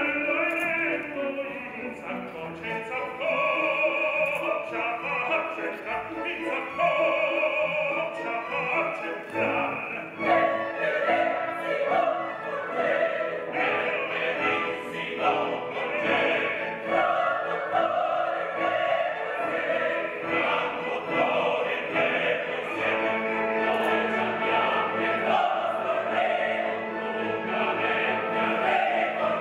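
Live opera performance: a mixed chorus singing with orchestra, growing fuller about ten seconds in.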